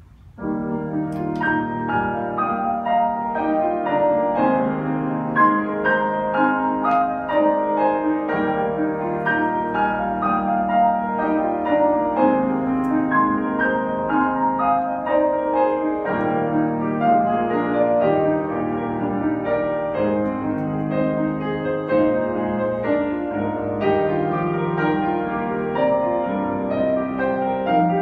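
Piano duet on two grand pianos, one a Steinway, playing a hymn arrangement with many notes ringing together; the playing begins about half a second in.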